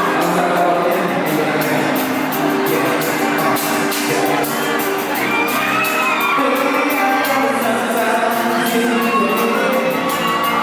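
Live pop music at a concert: a singer over a band with steady cymbal beats, and a crowd shouting and whooping along.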